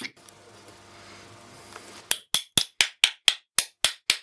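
Quick, regular hammer taps, about four a second, driving a steel bolt into a 3D-printed plastic part set on a wooden bench. The tapping stops for about two seconds in the first half, then resumes.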